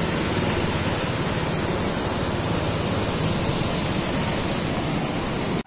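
Water rushing over a dam weir: a loud, steady roar that cuts off suddenly near the end.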